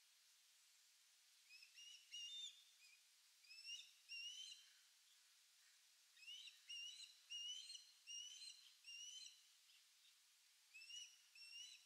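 A pair of ospreys calling while sharing a fish: short, upslurred whistled chirps given several in quick succession, in four bouts with short pauses between.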